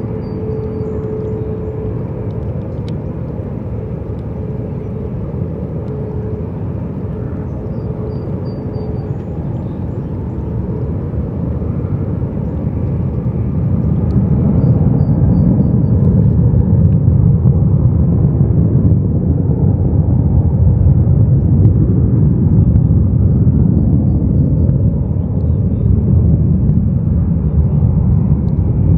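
Jet engines of a LATAM Boeing 787 airliner at takeoff power on the runway: a steady low rumble that swells about twelve seconds in and stays loud.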